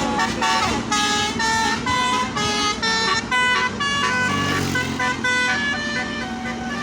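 Basuri 24-note bus horn with roof-mounted trumpets playing a quick "telolet" melody: loud, short held notes, each stepping to a new pitch every fraction of a second.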